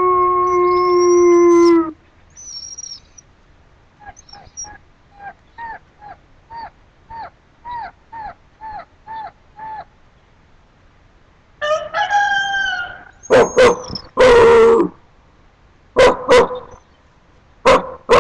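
A dog and its owner howling together: a long steady howl cuts off about two seconds in, followed by about a dozen short, falling yips in a row. Then comes another howl sliding down in pitch, and several short, loud barks near the end.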